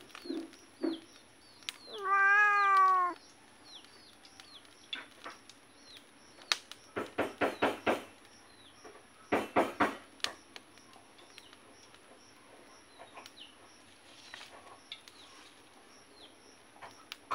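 A domestic cat meows once, a loud drawn-out meow of about a second. Later come two short runs of quick sharp knocks or snaps, about five in a second, with faint short high chirps repeating in the background.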